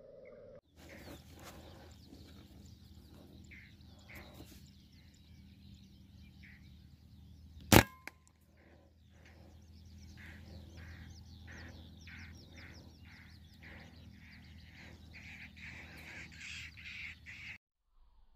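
A single sharp shot from a PCP Artemis M22 air rifle about eight seconds in, the loudest sound by far. Around it, birds chirp in rapid runs of short calls that grow busier toward the end, over a steady low hum.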